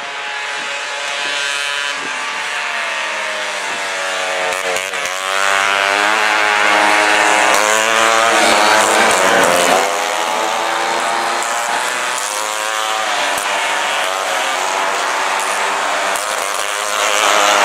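Several VéloSoleX mopeds racing past, their small two-stroke engines buzzing at high revs. The pitch drops as riders go by, about five and ten seconds in, and a louder group arrives near the end.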